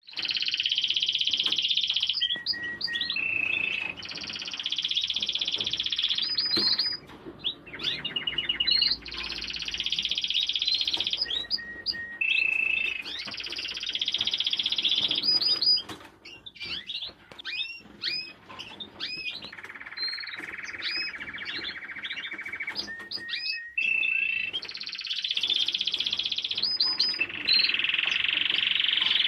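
A domestic canary singing a long song of rolled trills held one to two seconds each, broken by quick rising chirps. The song eases off briefly about a quarter of the way in and again around the middle.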